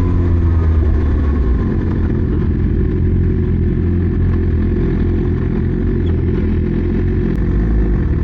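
Motorcycle engine running steadily while riding, loud and continuous, with a falling engine tone in the first second or two.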